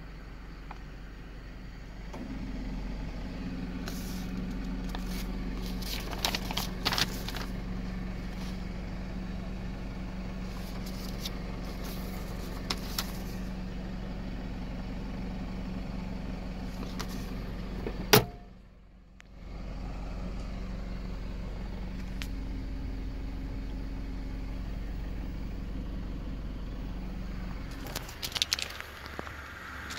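Honda CR-V's 2.0-litre petrol four-cylinder idling with a steady low hum, heard from inside the cabin. Paper sheets rustle as they are handled now and then. Near the middle a sharp click is followed by the hum dropping out for about a second.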